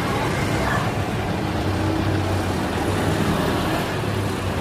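Rolls-Royce Trent 700 engines of an Airbus A330-300 running at low idle thrust as it lines up on the runway: a steady low rumble with a hiss over it.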